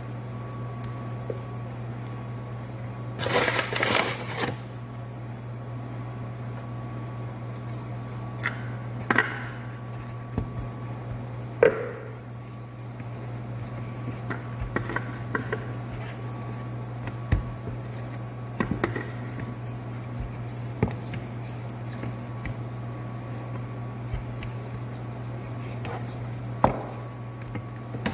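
A rolling pin knocks and rolls on a floured counter as sambusa dough is handled and rolled out. It makes scattered taps and thumps over a steady low hum, with a louder rustling scrape about three seconds in.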